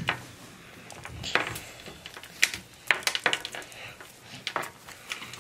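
Handling noise of small plastic toy pieces and charm strings: scattered, irregular light clicks and taps of hard plastic, some against a glass tabletop.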